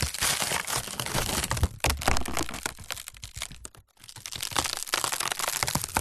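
Wood cracking and splintering: a dense run of sharp snaps and cracks, a short break to near silence just before four seconds in, then another splintering break.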